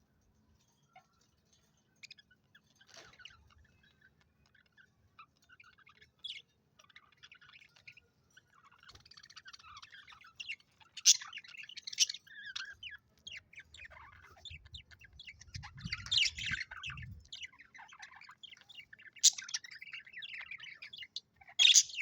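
Budgerigars chirping: scattered short chirps at first, growing busier after about nine seconds, with a few sharp louder calls. A brief low rumble comes in past the middle.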